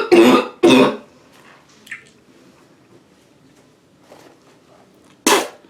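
Woman's coughing fit: two harsh coughs in the first second, a pause of a few seconds, then one more short, sharp cough near the end.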